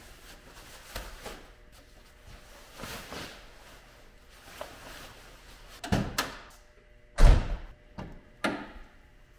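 A fabric car cover rustles as it is pulled back off a car. Then, from about six seconds in, come several sharp knocks and one loud thump, typical of a car hood being unlatched and lifted.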